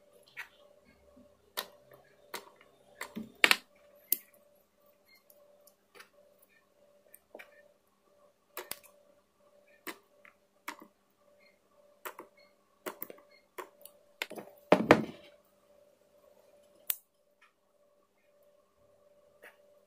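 Irregular clicks, taps and knocks of small parts and tools being handled during battery-pack work, over a steady faint electrical hum. A sharper knock comes about three and a half seconds in and a longer clatter near fifteen seconds.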